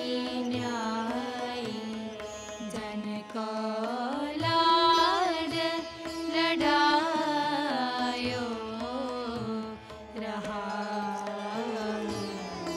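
Sikh raag kirtan played on traditional string instruments: a melody that slides and bends between notes over a steady tanpura drone.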